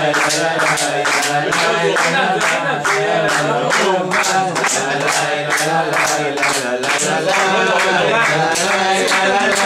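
A group of men singing a melody together, with hand clapping keeping a steady beat.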